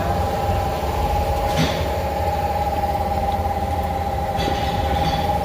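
A steady mechanical drone: a low rumble under a constant high hum, with a couple of short clicks.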